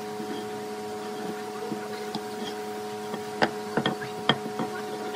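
A steady electrical-type hum on a few fixed tones, with a quick run of sharp wooden clicks and knocks about three and a half to four and a half seconds in, as timber and a wooden marking gauge are handled on the workbench.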